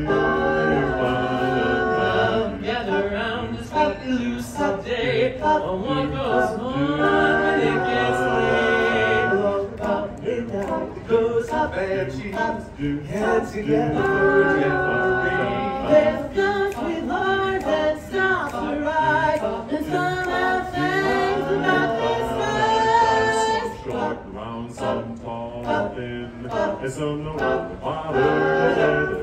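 Male barbershop quartet singing a cappella, four voices in harmony.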